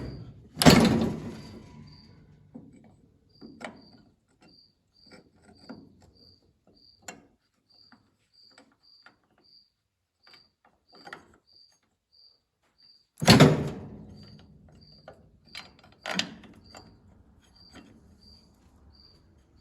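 Metal clanks and knocks from the New Holland 68 baler's knotter brake parts as the brake pads and the needle arm are handled, with two loud ringing clanks, about a second in and near thirteen seconds, and lighter knocks between. A cricket chirps steadily, about three chirps a second.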